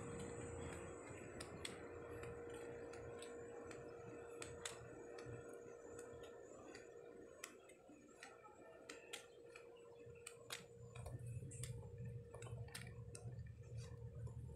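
Quiet outdoor background with faint, irregular clicks and ticks, roughly two a second, over a steady low hum. A low rumble comes up about eleven seconds in.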